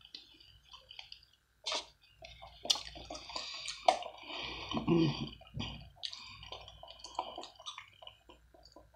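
Close-up eating mouth sounds: wet chewing clicks and smacks, then sipping a drink through a straw, with a denser run of slurping about halfway through and a swallow.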